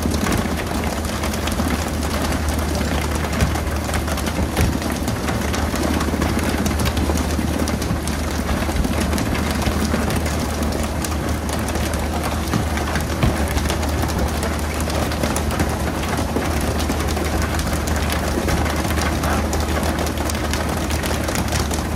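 Fishing boat's engine running steadily as a constant low hum under a broad rushing noise, with a few small knocks.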